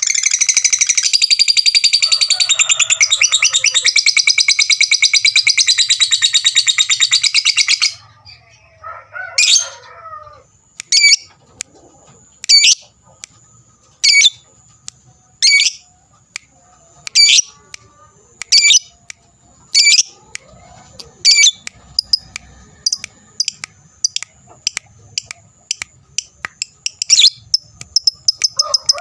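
Lovebird singing its 'ngekek' song: a long, rapid, high chattering trill for about eight seconds, then single sharp chirps about every second and a half, and the chattering trill starting again near the end.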